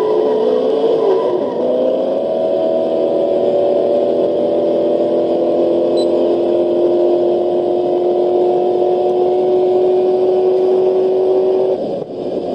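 Recorded car engine sound at steady high revs, with two engine notes held level. The pitch shifts in the first couple of seconds, then the sound cuts off near the end.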